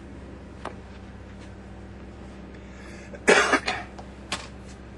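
A man coughs once, sharply, a little over three seconds in, over a steady low hum, with a couple of faint clicks before and after.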